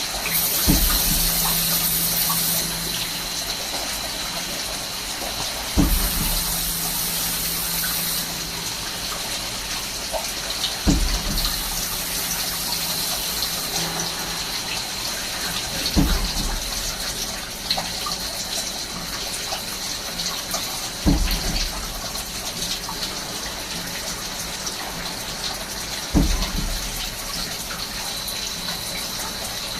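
Swiss-type CNC lathe running in automatic cycles, a sharp thump recurring about every five seconds, six times. After each of the first three thumps comes a high whine lasting about two seconds. Under it all runs a steady hiss of spraying coolant oil and a constant high tone.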